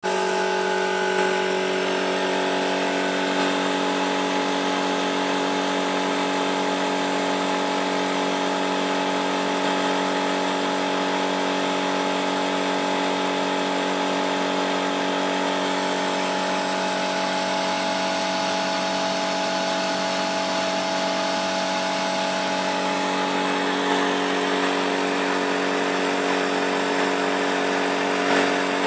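3D-printed model turbofan jet engine spinning on 8-bar compressed air: a steady whine of several held tones from its fan and spools over a constant hiss of air. The hiss eases a little about halfway through and picks up again later.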